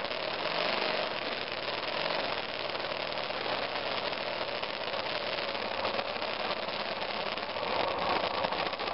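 The BMW F 650 GS Dakar's single-cylinder engine running steadily, heard through a low-quality camera microphone, a little louder near the end.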